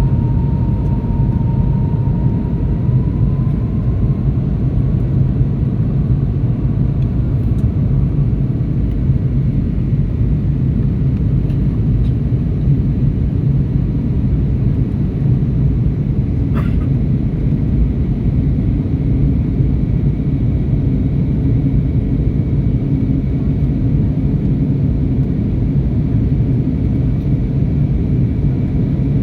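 Boeing airliner's jet engines and airflow during takeoff, heard as a loud, steady low rumble with a faint steady whine over it.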